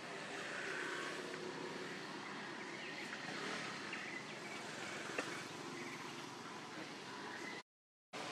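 Steady outdoor background noise with a few faint high chirps and one sharp click about five seconds in; the sound cuts out for a moment near the end.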